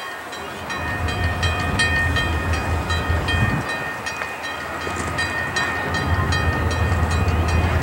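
Approaching train hauled by Alco C-424 diesel locomotives, the low diesel rumble growing louder, over a rapid, steady high ringing.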